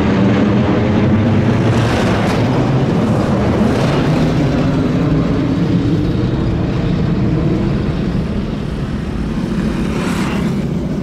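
Airbus A321 jet airliner's twin engines at take-off power as it climbs away overhead: a deep, steady rumble that slowly fades as the aircraft recedes.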